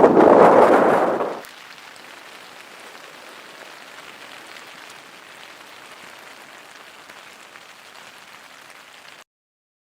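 Strong wind blowing over the microphone, loud at first, then dropping about a second in to a fainter, steady hiss that cuts off abruptly near the end.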